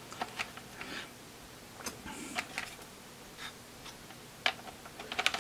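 Light plastic clicks and taps as push-button caps are handled and pushed into a Toyota Ipsum heater control panel, scattered one by one, with a quick run of clicks near the end.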